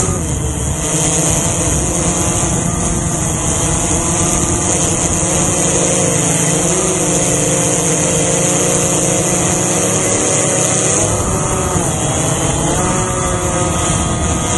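A small drone's electric motors and propellers whining steadily, heard close up from a camera mounted on the drone. The pitch shifts up and down a few times near the end as the motors change speed.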